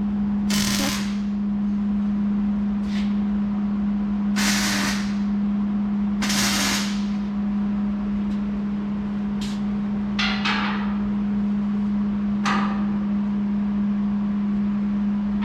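MIG welder laying several quick tack welds on steel framing, each a short crackling hiss under a second long, about five in all, with a few sharp clicks between them. A steady low hum runs underneath.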